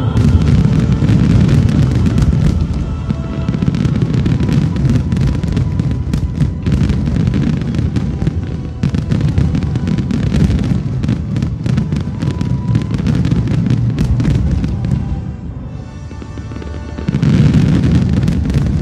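Fireworks display: a dense run of booming shell bursts and sharp crackles over music. The bursts ease off briefly near the end, then a loud final volley.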